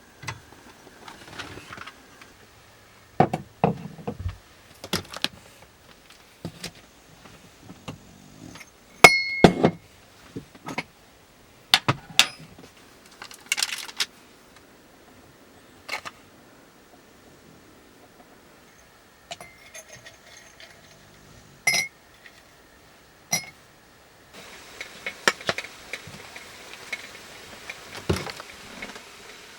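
Hard household items being handled, with scattered knocks and clinks and one ringing clink about nine seconds in. A steady hiss sets in about twenty-four seconds in.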